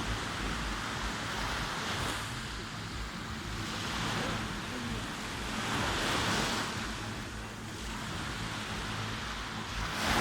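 Sea waves washing in and out, the surf swelling every two seconds or so, with a low wind rumble on the microphone.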